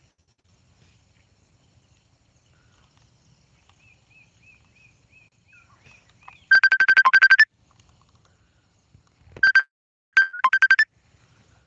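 Electronic phone ringtone: a fast trill of pulses on one steady pitch. It sounds in a burst of about a second, starting about six and a half seconds in, then comes back twice more, shorter, near the end.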